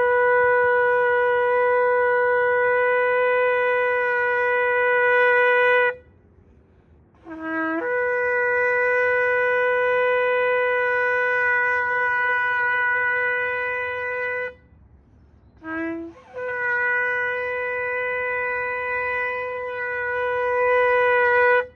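A shofar blown in three long blasts. Each opens with a short low note that leaps up to a steady higher tone held for several seconds, and a brief low note sounds just before the third blast.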